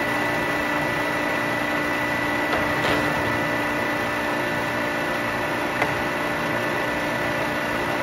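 Warner & Swasey No. 3 turret lathe running under power: a steady mechanical hum with a constant high whine, and one sharp click about six seconds in.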